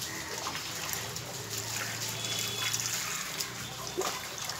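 Water splashing and trickling as a cat is washed by hand, with a hand dipping into a tub of water.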